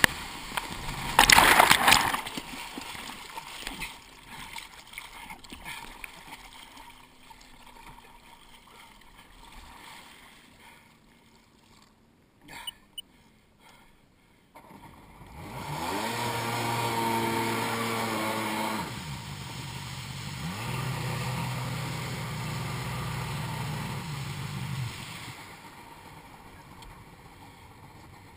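Sea-Doo 800 personal watercraft's two-stroke engine and the water around the hull. Spray dashes against the hull about a second in, and the engine then drops to a low, quiet run, almost silent for a moment. About halfway through the engine revs up and runs under throttle, eases off briefly, picks up again and holds, then drops away near the end.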